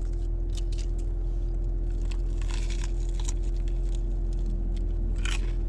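Crunching bites and chewing of a crispy-coated Korean corn dog, with scattered crackles that come thickest in the middle and once more near the end, over a steady low hum.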